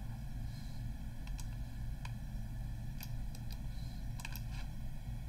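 Several faint computer clicks as code is copied and pasted into an editor, over a steady low hum and hiss of background noise.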